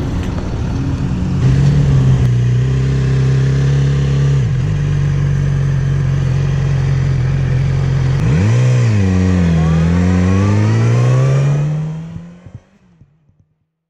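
Yamaha R6 sport bike's inline-four engine running steadily as the bike pulls away, then its pitch dips and climbs twice as it revs and accelerates. The sound fades out near the end.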